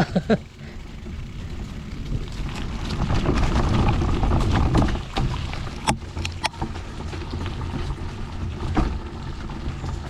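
Low wind rumble on the microphone with the noise of a mountain bike riding over rough trail. The rumble swells in the middle, and two sharp clicks come about six seconds in.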